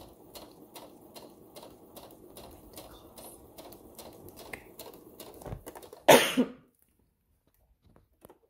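Electric home sewing machine stitching slowly, its needle clicking about three to four times a second over a low hum, sewing the curved seam of a fabric mask. About six seconds in the stitching stops and a single loud cough is heard.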